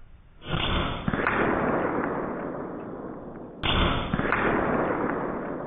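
Two heavy, drawn-out shot sounds from an Evanix Hunting Master AR22 PCP air rifle, slowed down. The first swells in about half a second in; the second starts with a sharp crack about three seconds later. Each fades away slowly over a couple of seconds.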